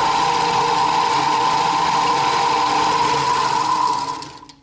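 Wood lathe running, spinning its chuck fitted with a new set of steel dovetail jaws: a steady whine over a hiss. It is switched off near the end and winds down.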